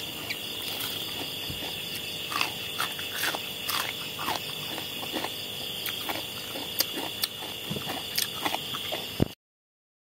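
Soft smacks, chewing and small clicks of a man eating by hand, over a steady high-pitched drone. The sound cuts off abruptly near the end.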